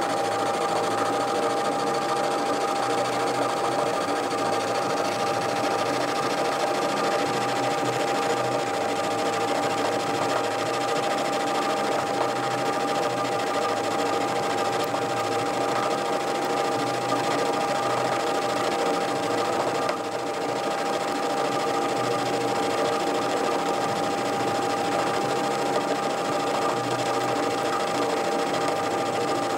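Small metal lathe running with a carbide tool turning down a connecting-rod bar in an interrupted cut, chips coming off steadily; the machine gives a steady whine throughout.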